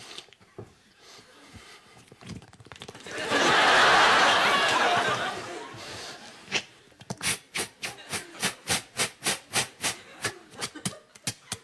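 Studio audience laughter swells up about three seconds in and fades. It is followed by a run of rapid, evenly spaced clicking mouth noises, about four or five a second: a performer's vocal sound effects for a barber's work.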